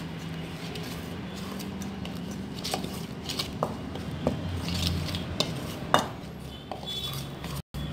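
A spoon scraping and clinking against a mixing bowl as a thick flour-and-egg batter is stirred, in scattered irregular clicks, the sharpest about six seconds in. A steady low hum runs underneath.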